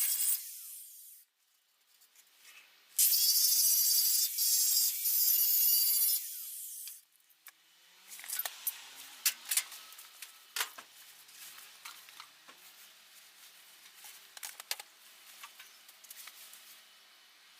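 Angle grinder working rusty car body steel in two bursts, a short one at the start and a longer one of about three seconds, each a high hissing grind. After that, quieter scattered scrapes and clicks of metal being handled.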